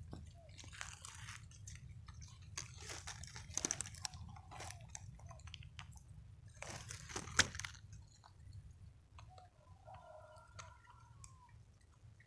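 Wet squelching and smacking in mud and water at an eel hole, in separate bursts, the loudest about seven seconds in.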